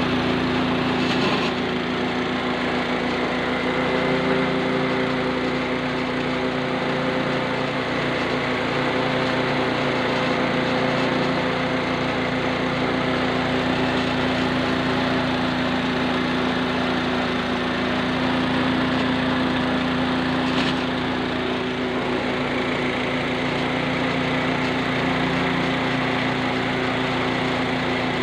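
Small single-cylinder petrol engine running at a steady speed, driving a mini rice huller by V-belt; engine and milling machine make one steady drone.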